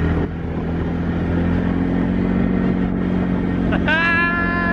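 Quad-bike (ATV) engine running at a steady speed while towing a rider on a snow tube. About four seconds in, a person lets out a long whoop that rises sharply and then holds.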